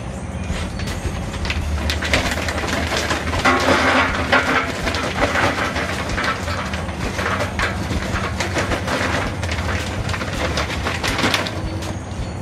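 Jealous Devil Maxx charcoal briquettes poured from a paper bag into a metal fire basket, with a dense, irregular clatter of briquettes and rustling of the bag. The clatter is busiest through the middle and thins out near the end.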